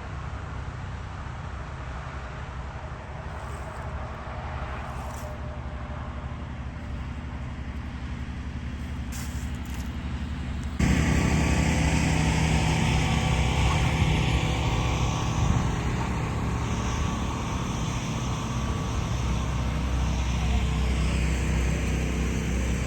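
Motor vehicle running with steady road and engine noise. About eleven seconds in, the sound jumps abruptly louder to a heavier, steady engine drone with a low hum.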